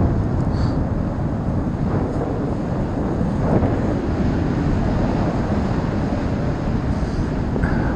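Airflow buffeting the microphone of a camera mounted on a paraglider in flight: a steady, loud wind rumble.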